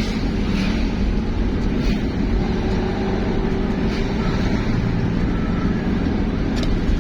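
Steady low rumble of a moving road vehicle's engine and tyres on the road, with no horn sounding.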